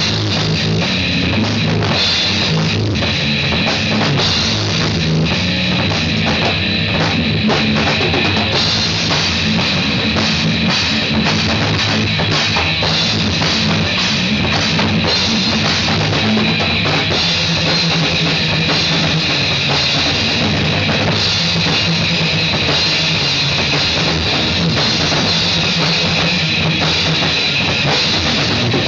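Drum kit and guitar playing loud rock music together, with steady bass drum and cymbal hits.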